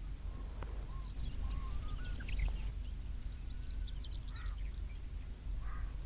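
Faint, scattered chirps and short rising whistles of several small birds, over a low steady background rumble.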